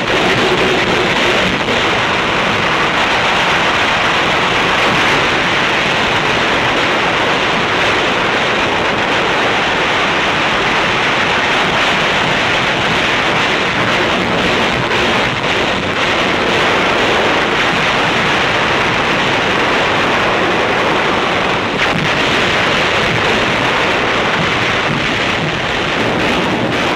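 Shipboard anti-aircraft guns firing without pause, the shots merging into one loud, steady din with no separate reports standing out.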